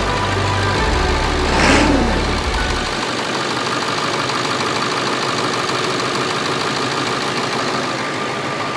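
Ford 7.3 Powerstroke turbo-diesel V8 idling steadily, running smoothly again after its engine wiring harness was replaced. A brief louder sound stands out just under two seconds in, and the deep low rumble drops away about three seconds in.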